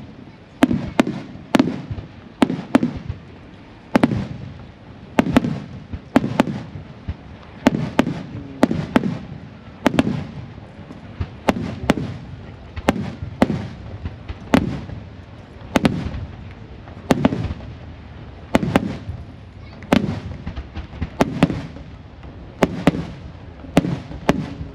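Aerial firework shells bursting one after another in quick, irregular succession, each a sharp crack followed by a low boom that echoes and trails off.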